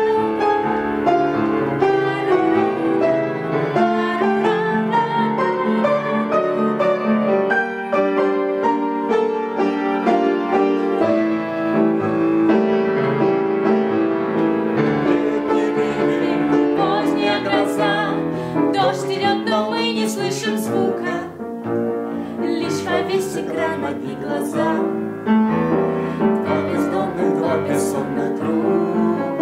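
Piano playing a slow song accompaniment, with a young woman's singing voice most plain in the second half.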